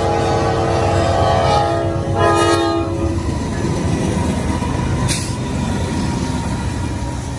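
Norfolk Southern diesel freight locomotive's multi-note air horn blowing a chord that swells and drops in pitch as the engine passes, about two seconds in, and stops about three seconds in. The heavy rumble of the passing diesel locomotives and their steel wheels on the rails follows.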